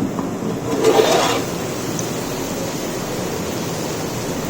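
Onions frying in hot oil in a large pot, a steady sizzle, briefly louder about a second in.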